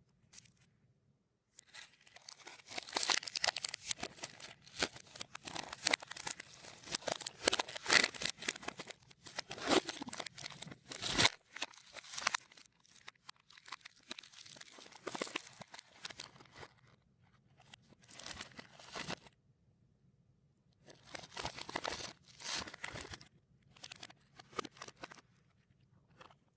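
Plastic snack wrappers being torn and crinkled, played in reverse. A long stretch of dense crackling is followed by three shorter bursts near the end.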